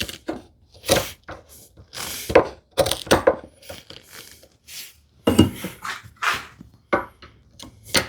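Bevel-edge chisel working a mortise in wood: irregular knocks with short scraping strokes between them as the walls are pared and waste cleared out.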